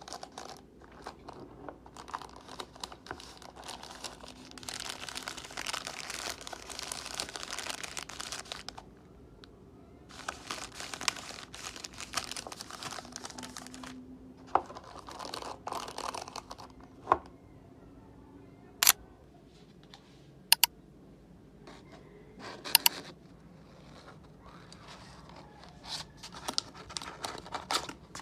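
Plastic packaging crinkling and tearing as items are unwrapped by hand, in several long stretches, with a few sharp clicks in between.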